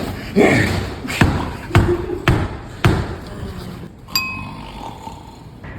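Four sharp thumps about half a second apart, followed a little later by a single bright ding that rings briefly.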